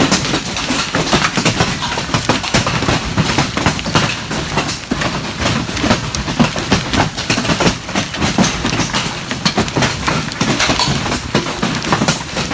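Large hailstones pounding a metal barn's roof and walls and hitting the ground outside: a dense, unbroken, loud clatter of countless impacts.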